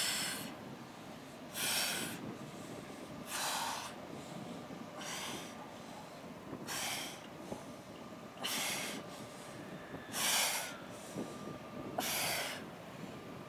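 A woman's forceful exhalations during ab crunches, one sharp breath out on each crunch, about every second and three-quarters, eight in all. A steady low hiss lies underneath.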